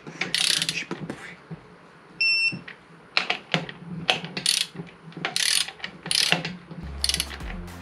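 Digital torque wrench ratcheting in short bursts of quick clicks while tightening engine main bearing bolts on the 110 ft-lb first torque round. About two seconds in, the wrench gives a short electronic beep, its signal that the set torque is reached.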